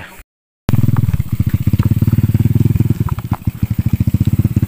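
A 110 cc single-cylinder four-stroke pit bike engine running at low revs with an even, rapid putter. It starts after a split second of dead silence near the start.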